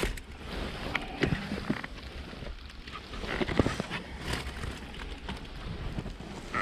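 Camera handling noise: fabric rustling against the microphone, with scattered irregular knocks and clicks over a low rumble.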